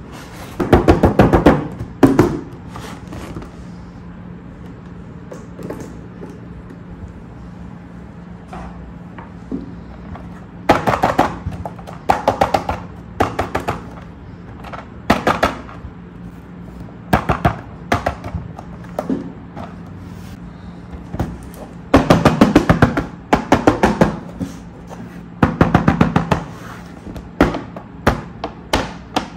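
Rapid fingernail tapping on the plastic and cardboard of toy boxes, in bursts of one to two seconds separated by quieter pauses, over a steady low hum.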